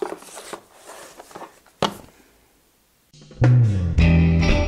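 A cardboard phone box being handled, with soft rustles and clicks and one sharp knock about two seconds in. From about three seconds a short transition jingle with heavy drum hits and a low bass note rings out loudly.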